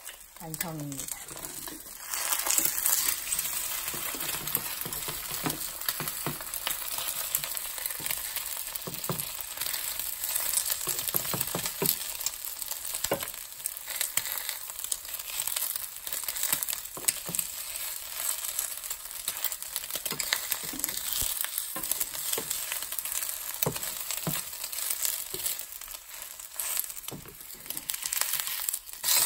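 An egg frying in a nonstick pan, sizzling steadily from about two seconds in, with short scrapes and taps of a spatula working under it.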